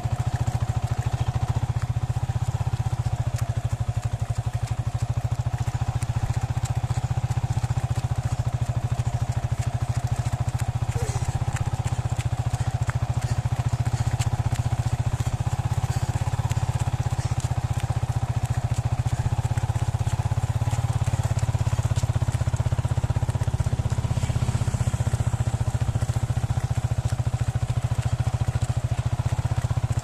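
Small motorcycle engine running steadily at low speed, a constant low drone with no revving.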